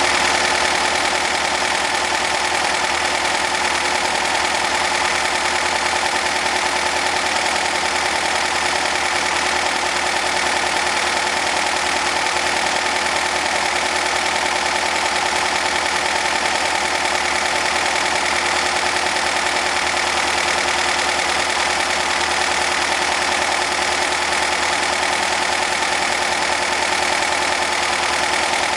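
Air-cooled 2.5-litre Volkswagen Type 1-based flat-four engine running steadily at idle.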